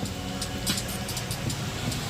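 Background music with a steady beat: regular crisp hits over a held low bass line.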